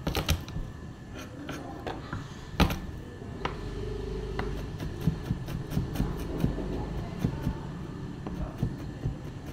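Chef's knife chopping garlic cloves on a plastic cutting board: scattered slicing taps with one sharp knock about two and a half seconds in, then quicker, regular chopping taps, a few a second, as the garlic is minced.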